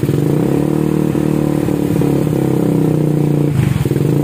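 Suzuki Satria FU's 150 cc single-cylinder four-stroke engine running through its stock muffler with the insides gutted out. The revs rise a little after half a second and hold, dip briefly about three and a half seconds in, then pick up again.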